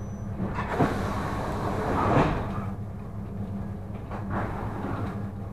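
Electric suburban train standing at a platform: a steady low electric hum from the car, with a few short knocks and clatters inside the car about one, two and four seconds in.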